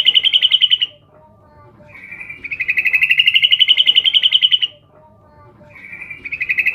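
Female yellow-vented bulbul (trucukan) calling for a male: a rapid chattering trill that rises slightly in pitch. Each phrase lasts about two seconds and repeats after a short pause. One phrase ends just after the start, a full one follows, and another begins near the end.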